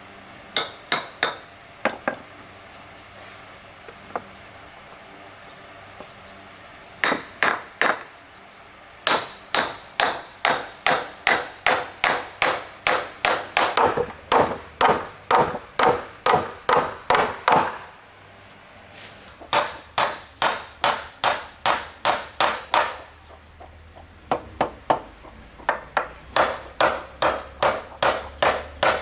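A hand tool striking wood in quick, regular blows, about two to three a second. The blows come in long runs with short pauses between them, after a few scattered strikes near the start.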